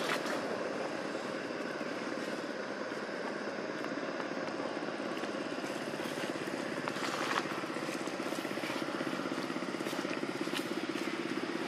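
A vehicle engine running steadily, with a few faint clicks.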